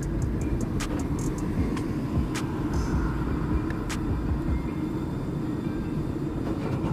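A 1944 PCC streetcar running along the track, heard from inside the car: a steady low rumble, with a few sharp clicks about a second apart early on.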